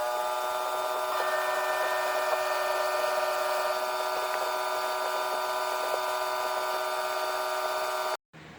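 Small high-speed drill running with a steady high whine while drilling holes along a crack in a circuit board. It stops abruptly near the end.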